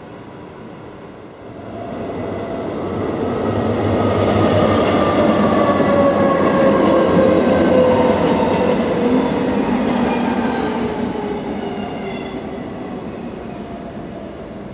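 An electric train passing: the noise of its wheels on the rails swells over a few seconds, peaks, then fades away. A whine from the train slides steadily down in pitch as it goes by.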